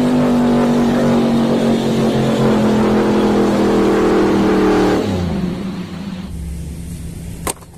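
Off-road 4x4's engine revving hard and held high for about five seconds while it ploughs through deep mud, then easing off and fading.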